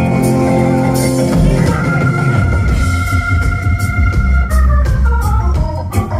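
Live band playing, led by a Hammond-style organ holding sustained chords, with bass and drums underneath. About two seconds in the organ holds a high note, then steps down in pitch near the end.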